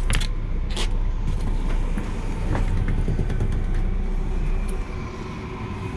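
An engine idling with a steady low rumble, with a couple of short knocks in the first second.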